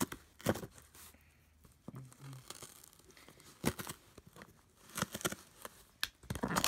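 Tape and paper shipping label on a cardboard box being scratched and torn open with the point of a pair of scissors, in short scratchy rips with a lull in the middle and a busier run of tearing near the end.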